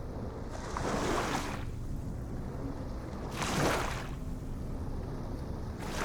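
Ocean waves washing in, each one a hissing surge, about every two and a half seconds over a steady low rumble.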